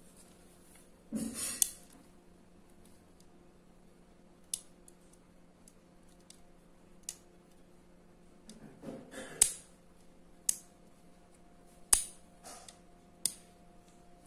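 Stainless folding multitool being worked by hand: its blades and tools swing open and shut with sharp metallic clicks as they snap into place, about seven in all. There are brief scraping rustles of metal and hands about a second in and again near the middle.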